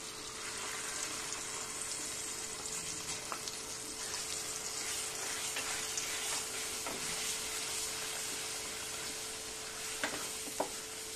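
Ground masala paste and chilli powder sizzling steadily in hot oil in a kadhai while being stirred with a spatula, with a few light taps of the spatula on the pan near the end. This is the masala being fried until the oil separates.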